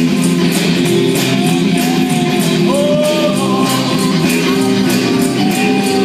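Live rock band playing: electric guitars strumming over a drum kit with a steady beat, and a man singing a melody at a few points.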